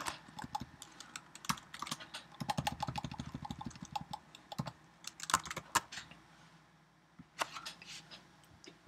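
Typing on a computer keyboard: quick, irregular keystrokes that thin out about six seconds in, with a few scattered clicks near the end.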